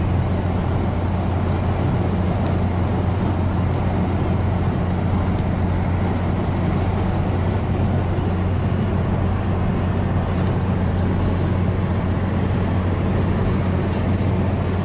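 A vehicle cruising at a steady speed: an even engine drone with a constant low hum under road and wind noise.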